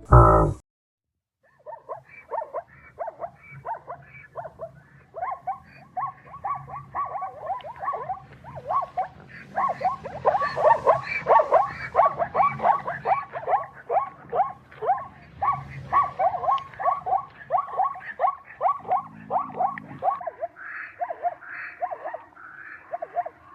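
A short loud burst at the very start, then, after a brief pause, a long run of short repeated animal calls, two or three a second.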